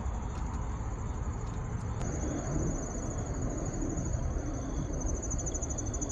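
Crickets trilling steadily, a high, finely pulsing chorus that grows stronger about two seconds in, over a low rumble.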